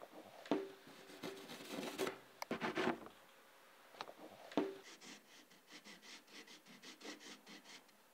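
Hand rubbing over the surface of a carved antique wooden door panel: quiet, uneven scratchy strokes, with a couple of sharper taps, then short quick rubs about three a second in the last few seconds.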